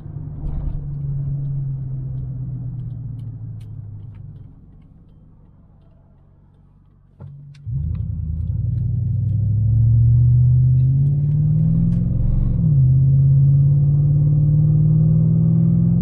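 Chevrolet Avalanche V8 heard from inside the cab, running quietly for a few seconds. After a sudden jump about halfway in, its note rises in pitch under acceleration, drops at a gear change about three-quarters of the way through, and climbs again: the freshly rebuilt automatic transmission upshifting.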